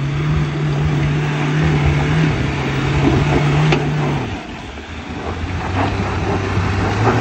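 A 4WD's engine running under load on a steep, rutted climb, with a steady note that eases off about four seconds in, then settles back to a lower, steady pitch.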